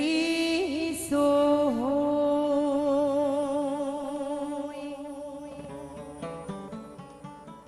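A woman singing a devotional bhajan, holding one long wavering note that fades away about two-thirds of the way through. Short plucked string notes take over near the end.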